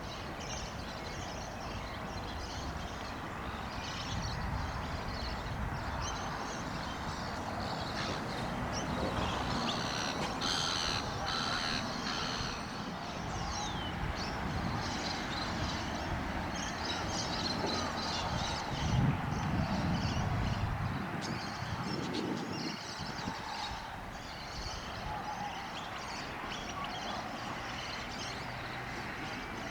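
A crow cawing several times, most strongly about ten to twelve seconds in, over scattered small-bird chirps and a steady low rumble. A dull bump a little before twenty seconds is the loudest moment.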